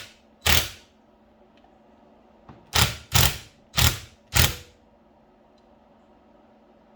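Sharp metal taps driving a valve stem seal installer to seat a valve stem seal on an LS cylinder head: one tap, then a quick run of four more a couple of seconds later.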